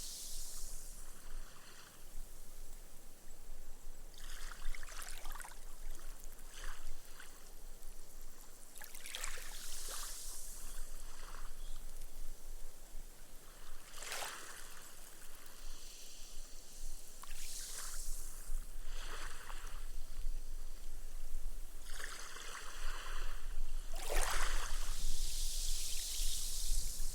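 Small, gentle waves washing up a sand beach, each wash hissing and fizzing as the water soaks into the sand and the foam pops away. The washes come every four or five seconds, with the biggest near the end.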